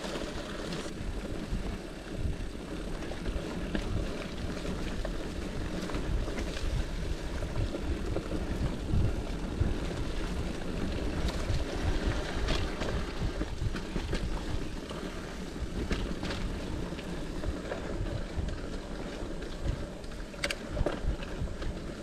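Wind buffeting the microphone on a moving mountain bike, over the rumble of tyres on a muddy dirt trail, with scattered sharp clicks and rattles from the bike.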